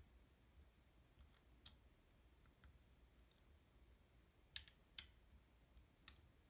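Near silence broken by a handful of faint, sharp clicks and taps as fingers handle the open back of a CONTAX RX 35 mm SLR and its refitted internal cover plate.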